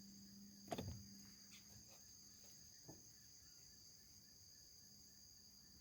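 Faint, steady high-pitched chorus of insects such as crickets, with one short knock about a second in.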